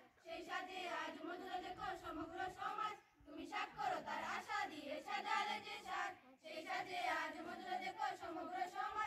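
A large group of schoolchildren singing together in unison, in phrases broken by short pauses about three and six seconds in.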